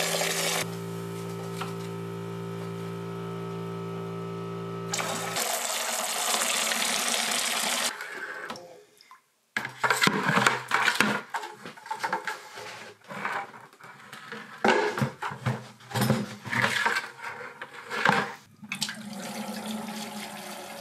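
Water from a hydronic heating system's flush lines running and splashing into a plastic bucket as the loops are flushed of sludge. A steady hum sits under the water for the first five seconds; after that the water comes in irregular splashes and gurgles, turning to a steadier rush near the end.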